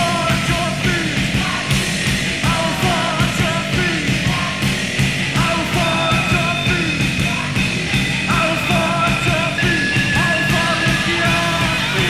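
Industrial noise rock: distorted guitar, bass and drums playing a loud, driving beat, with yelled vocals over it.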